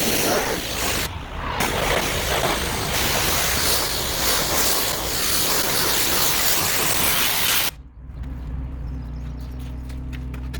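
Pressure washer spraying water onto paving, a loud steady hiss that breaks off briefly about a second in and stops abruptly about three quarters of the way through. After it stops, a steady low engine hum carries on.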